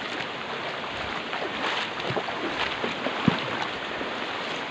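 A river rushing with a steady wash, broken by short splashes and knocks, the sharpest one just past three seconds in.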